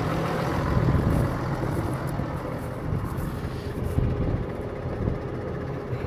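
Tractor engine running steadily, a low even hum.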